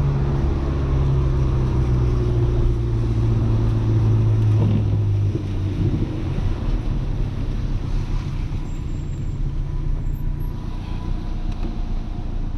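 Audi A3 1.8T's turbocharged four-cylinder engine heard from inside the cabin, running steadily under way with its note slowly dropping. About five seconds in, the engine tone falls away as the driver lifts off, leaving road and tyre rumble.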